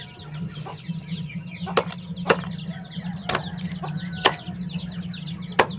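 Machete chopping a banana corm against a brick, a sharp chop about once a second, over constant high peeping from Muscovy ducklings.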